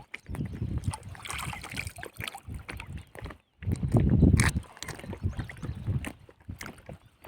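Irregular water sloshing and splashing with knocks of handling, loudest in a burst about four seconds in.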